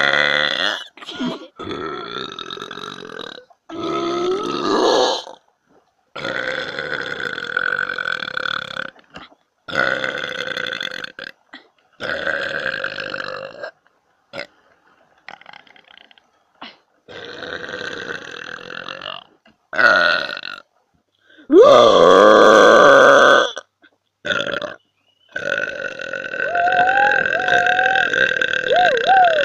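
A young woman burping loudly, about a dozen long burps one after another with short pauses between them; the loudest and longest comes about two-thirds of the way through.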